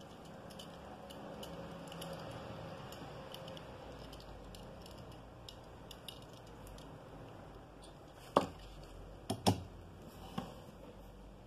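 Faint steady background noise, then four sharp plastic-and-metal clicks from about eight to ten seconds in as a 1/64 die-cast model car is lifted off and another set onto a clear plastic display turntable.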